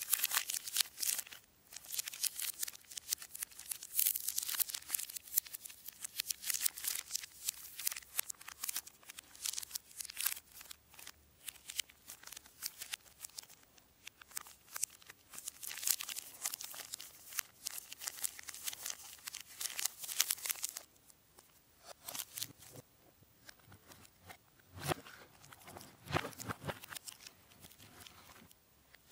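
Plastic snack wrapper of a Kinder Cereali bar crinkling, rustling and tearing in the hands. About two-thirds of the way through it turns quieter, with a few soft knocks.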